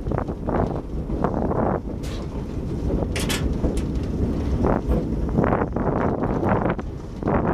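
Wind buffeting the microphone on a slowly moving train, over a steady low rumble, with a few sharp clicks.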